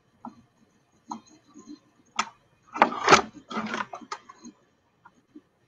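Scattered small clicks and knocks of audio equipment being handled, with a busier, louder cluster about three seconds in.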